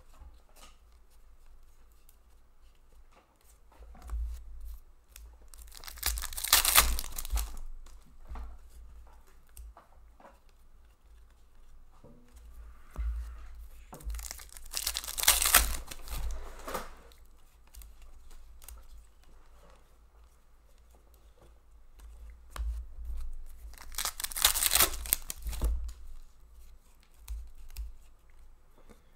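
Foil trading-card pack wrappers being torn open and crinkled, in three loud tearing bursts about nine seconds apart, each lasting a second or two. Faint clicks of cards being handled and flicked come in between.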